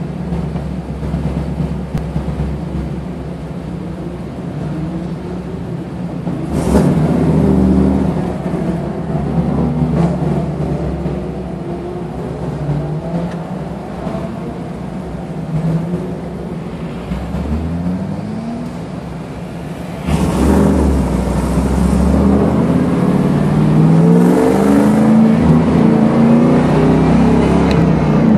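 Engine of a 1989 Pontiac Firebird Trans Am heard from inside the cabin, rolling at low speed with a few short rises in pitch as it pulls along. From about twenty seconds in it gets louder and accelerates hard, its pitch climbing in repeated sweeps up through the gears.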